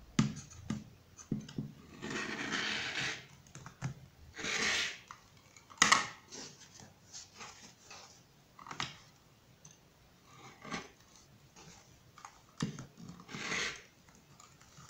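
Rotary cutter rolling through layers of cotton patchwork on a cutting mat: several short rasping cutting strokes, with clicks and rustling as the ruler and fabric are handled, and a sharp knock about six seconds in.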